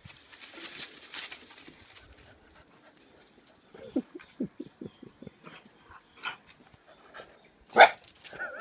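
Dog making a run of short, quick, pitched huffing sounds, about four or five a second, then one loud sharp bark near the end. Footsteps rustle through dry leaves in the first two seconds.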